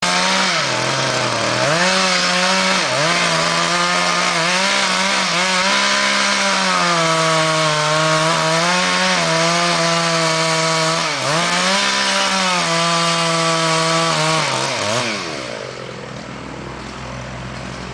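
Chainsaw at full throttle cutting through the trunk of a large maple. The engine's pitch dips briefly several times as it bogs under load. About 15 seconds in, it drops to a lower idle.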